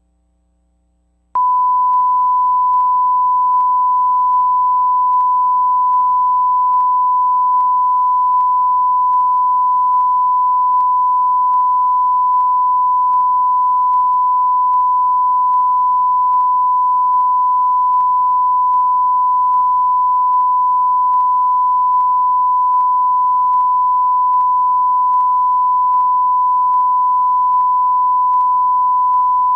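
A steady 1 kHz test tone on the videotape. It starts abruptly about a second in after near silence and holds at one pitch, with faint ticks about every 0.8 s.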